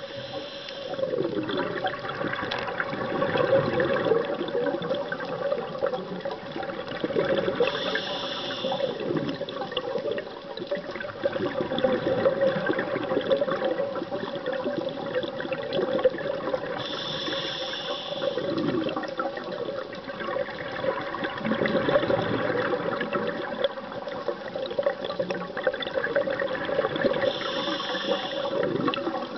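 A scuba diver breathing through a regulator underwater. A short hiss of inhalation comes about every nine seconds, four times in all, and each is followed by a rush of exhaled bubbles gurgling.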